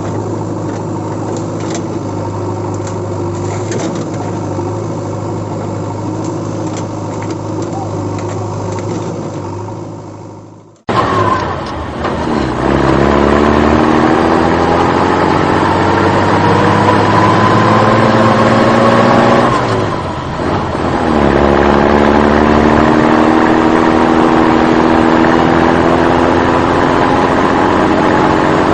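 A vehicle engine running steadily, fading out about ten seconds in. After a sudden cut, an engine revs up with a slowly rising pitch, drops back around twenty seconds in, and climbs again.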